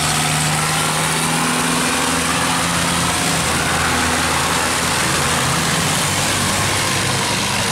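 Several long-tail boat engines running together in a steady drone, their notes shifting about three seconds in as the boats move, over the rush of churning water at the sluice gate.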